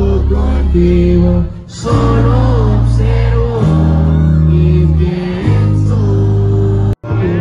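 Live sierreño band music: singing over guitar and long, deep bass notes that change every second or two. There is a sudden brief drop-out near the end.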